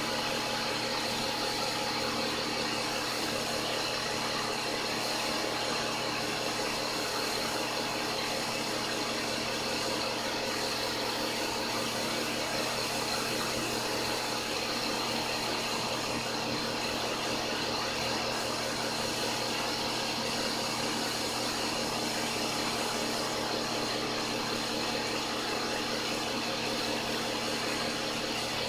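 Steady, unchanging hum of the home-made car wash system's motor-driven pump, feeding foam through a hose to a long-handled brush.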